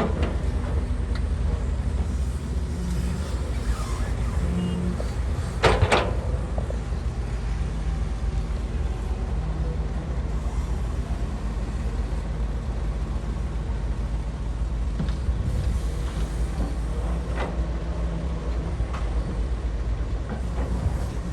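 Cat excavator's diesel engine running steadily at work. There is a loud clank about six seconds in and a few fainter knocks later on.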